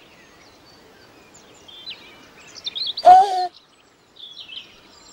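Birds chirping and singing throughout. About three seconds in there is one short, loud vocal sound from a baby.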